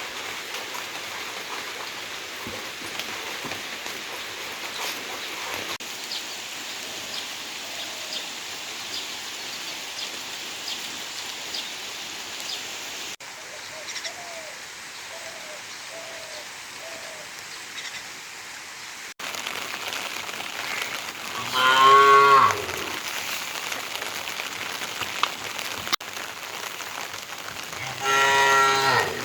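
Cattle lowing: one loud, long moo about two-thirds of the way in, and another starting near the end. Under it runs a steady hiss of rain.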